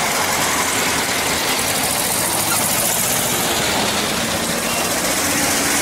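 Air-cooled flat-four engines of vintage Volkswagen buses, a Type 2 Westfalia camper and a split-window bus, running as they drive past one after another.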